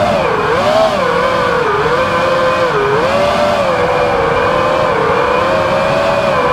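FPV quadcopter's brushless motors and propellers whining, the pitch dipping and rising several times with throttle changes during the first three seconds, then holding steadier.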